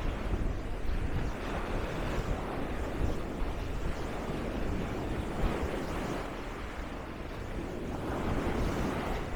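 Wind buffeting the microphone over the steady wash of sea waves on the shore, with a heavy, fluctuating low rumble.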